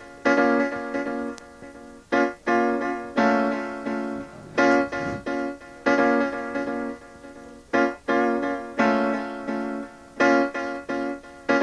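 Piano chords struck again and again in an uneven repeating pattern, each one fading before the next, with no bass or drums under them: the instrumental intro of a hip-hop track.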